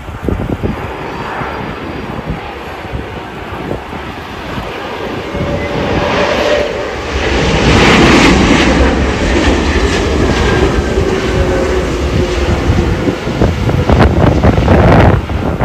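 Airbus A330-300 airliner landing, its Rolls-Royce Trent 700 engines running as it passes close. The roar builds and is loudest about eight seconds in, around touchdown, then stays loud through the rollout.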